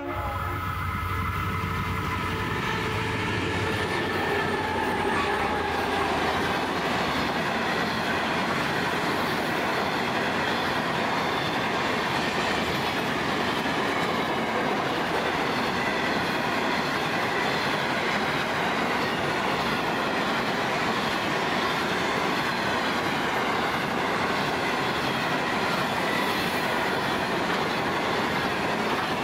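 Pacific National grain train passing: the diesel locomotives BL33 and G525 approach and go by, growing louder over the first few seconds. A long string of empty grain hopper wagons then rolls past with steady wheel-on-rail clatter and a faint, wavering wheel squeal.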